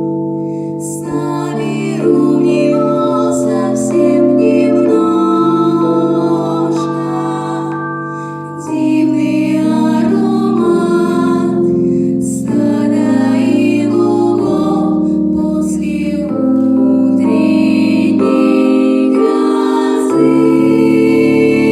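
Slow song performed by singing voices over sustained keyboard chords, the chords changing every second or two.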